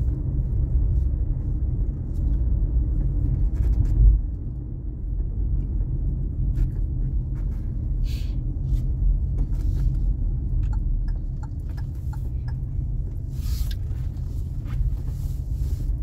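Steady low rumble of a car on the move, with a single thump about four seconds in.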